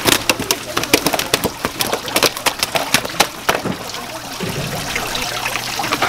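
A live fish thrashing on wet concrete and a metal drain grate, its body and tail slapping many times in quick succession, with water trickling; the slapping thins out after about four seconds.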